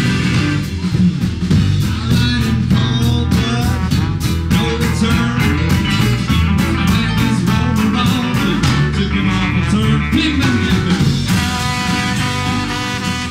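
Live rock band playing an instrumental stretch, with drums keeping a steady beat under bass, electric piano and guitars.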